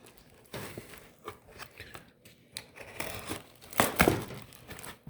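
Packaging being crinkled and torn open by hand in scattered rustles, with the loudest rip about four seconds in.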